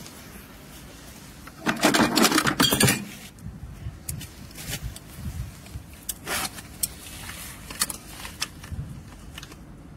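Hand tools and metal fittings clinking and rattling while a threaded connector is fitted and tightened on a water pump's outlet, with a loud rattle about two seconds in and scattered clicks after it.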